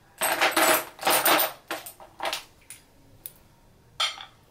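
Perfume bottles set down one after another on the glass top of a perfume tray, clinking and knocking: a quick cluster in the first second and a half, then single clinks spaced out, the last about four seconds in.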